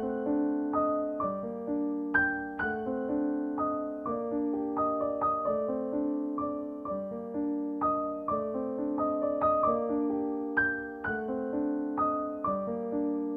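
Background music: a gentle piano melody of plucked-sounding notes that ring and fade.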